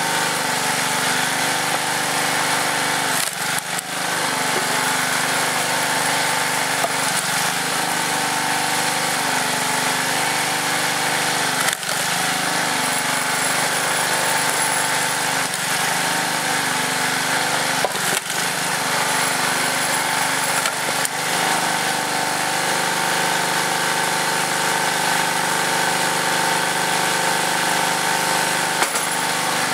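Tecumseh small engine on a hydraulic log splitter running steadily, with several sharp knocks and cracks of wood as rounds are set on the beam and split.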